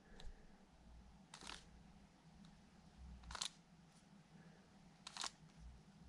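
Three soft plastic clicks of a 3x3 speedcube's right face being flicked through R turns, about two seconds apart, with near silence between them.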